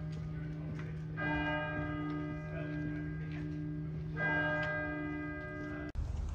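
A large church bell tolling, with fresh strikes about a second in and again about three seconds later, each ringing on over a steady low hum. The sound cuts off abruptly near the end.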